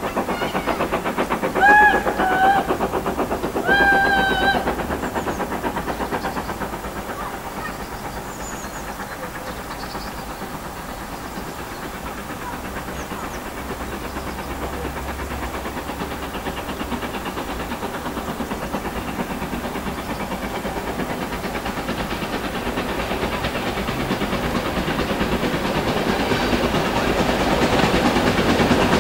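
Double-headed steam train, GWR Hall-class 4953 leading LNER K4 61994 The Great Marquis, approaching under steam with a continuous chuffing exhaust beat that grows louder toward the end as it draws close. A locomotive whistle sounds twice in the first few seconds.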